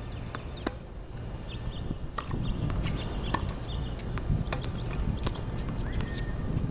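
Outdoor tennis court sounds: scattered sharp taps of footsteps on the hard court over a low wind rumble on the microphone, with a few short high tones and one brief rising tone near the end.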